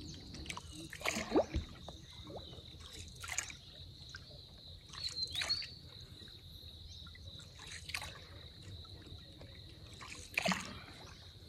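A steady, high insect buzz, with a handful of short water splashes and trickles scattered through it.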